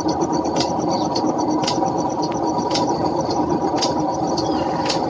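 Short, sharp house sparrow chirps repeating about once a second over a steady mechanical drone, like a running motor or engine.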